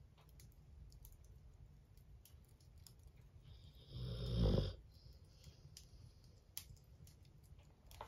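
Cane Corso snoring in its sleep: one loud, deep snore about four seconds in, lasting under a second, with faint scattered clicks around it.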